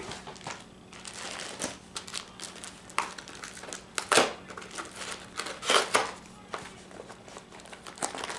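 Wrapping paper and packaging being crumpled and rustled by hand, in irregular bursts of crinkling, with the loudest crackles about three, four and six seconds in.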